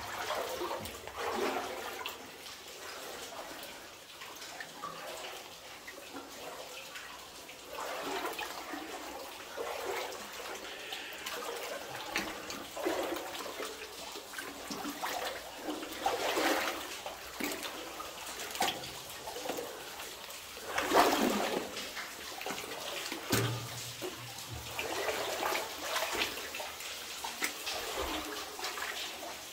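Water sloshing and splashing as someone wades through deep water, in uneven surges; the loudest splash comes about 21 seconds in.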